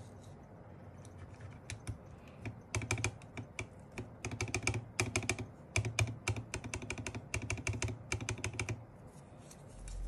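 Typing test on a Filco Minila R mechanical keyboard with Glorious Panda tactile switches and freshly greased Costa stabilizers; most switches are bare, with caps only on the long keys. A few faint keystrokes give way, about three seconds in, to a quick run of loud clacks that stops about a second before the end.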